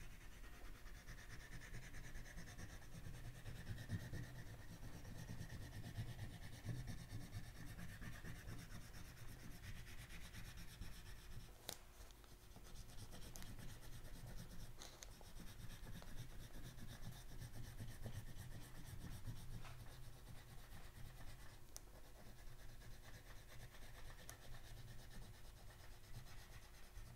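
Faint, steady rubbing of a black oil pastel shaded back and forth across paper, with a brief pause about twelve seconds in.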